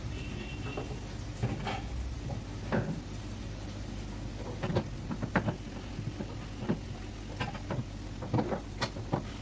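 Irregular light knocks and clatter of containers and shelves inside a refrigerator as its interior is wiped with a cloth, over a low steady hum.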